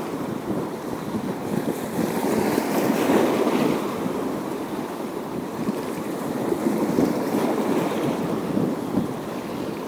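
Sea waves washing against a rocky shore, the wash swelling and easing, with wind buffeting the microphone.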